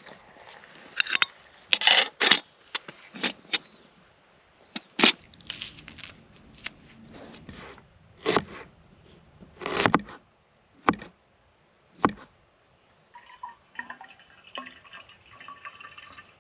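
Camp cookware and utensils being handled for cooking an omelette: a dozen or so separate knocks, clinks and clatters with faint scraping between them. Soft background music with a guitar comes in about three-quarters of the way through.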